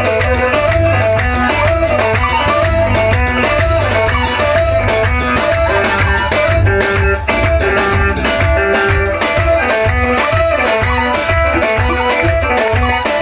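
Live band music at full volume: drum kit and bass keep a steady driving groove under a repeating melodic riff.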